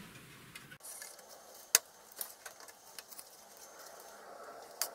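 Handling clicks from the plastic board-ejector tabs and metal card cage of an avionics unit as a circuit board is worked at to pull it out: one sharp click a little under two seconds in, then a few fainter clicks.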